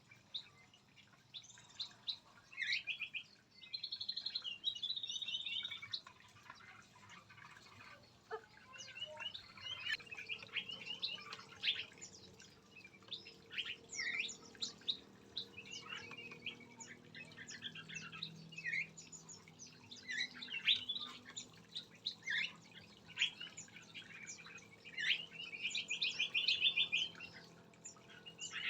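Several small caged songbirds in an aviary chirping and calling, with short, quick trills and many brief chirps overlapping. A faint steady low hum runs underneath from about a third of the way in.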